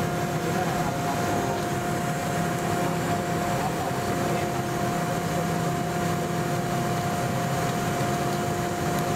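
Steady jet cabin noise inside a Boeing 717-200: an even rush with a constant hum-like tone from its rear-mounted Rolls-Royce BR715 turbofans and air systems, neither rising nor falling.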